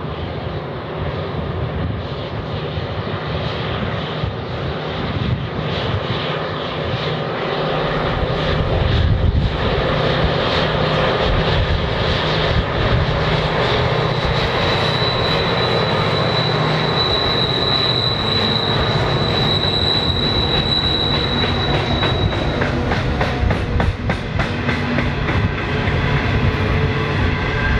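Loaded coal train passing, led by diesel locomotives: the engine drone grows louder over the first several seconds and then holds, with a steady high whine through the middle. Near the end the wheels of the coal hopper wagons click rhythmically over the track.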